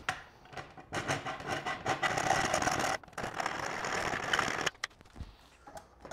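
Metal scraping on metal in two long stretches, the second stopping abruptly near the end.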